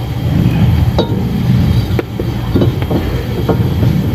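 Metal brake parts clinking as a new brake pad is fitted into a Honda Civic EK's disc brake caliper bracket: about seven light, sharp clinks at irregular spacing, starting about a second in, over a steady low rumble.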